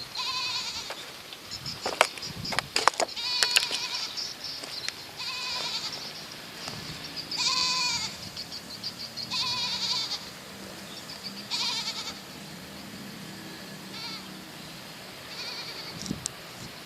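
An animal calling over and over, a short quavering high-pitched call about every two seconds. A few sharp clicks come two to three seconds in.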